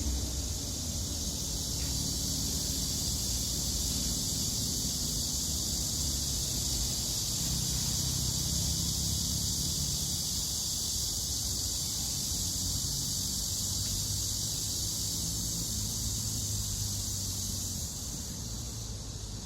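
Steady outdoor ambience: an even high-pitched hiss with a faint low hum beneath it.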